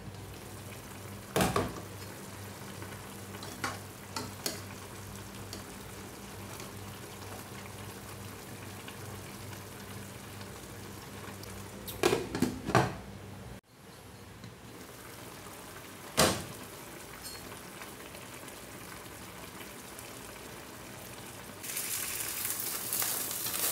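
A pot of paksiw tilapia simmering on a gas stove, with a few clinks of its glass lid against the pot. Near the end the lid is off and the bubbling and sizzling of the braising liquid grows louder as the dish finishes cooking.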